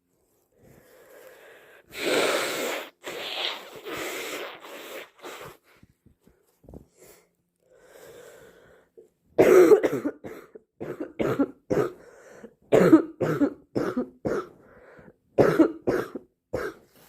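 A person with a heavy head cold coughing in two bouts: a few long coughs about two seconds in, then from about nine and a half seconds on a fast string of short coughs, several to the second, with breaths drawn in between.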